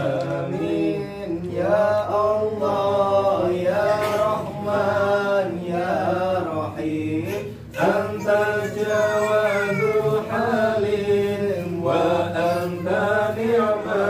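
Men's voices chanting an Islamic prayer in a slow, melodic recitation, with a short pause for breath about eight seconds in.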